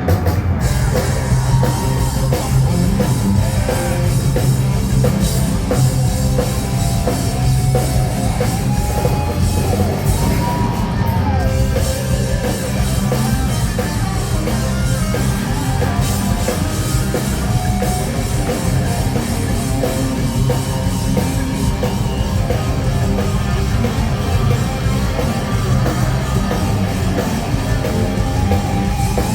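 Live hard rock band playing loud: drum kit and bass pounding under electric instruments, with a lead line bending up and down in pitch.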